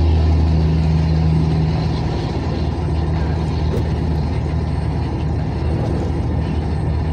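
A vehicle's engine droning steadily with road noise, heard from inside the moving vehicle on a wet highway. The drone is loudest at the start and eases a little after about two seconds.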